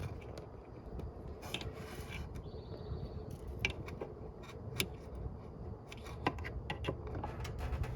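Scattered light clicks, taps and scrapes of tools and meter test probes being handled while checking an air conditioner's wiring for voltage, over a steady low rumble.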